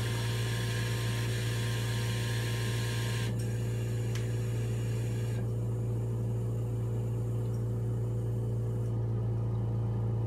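Puritan Bennett 840 ventilator running its short self-test (flow sensor stage): a steady machine hum with a higher hiss that drops away in steps about three and five seconds in.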